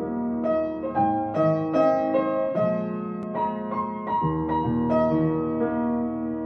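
Piano music: a slow, gentle melody of struck notes, a new note or chord about every half second.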